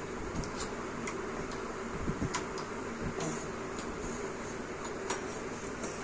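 A small metal key tapping and scraping against a painted door and its lock as a toddler fumbles for the keyhole: light, irregular clicks and ticks.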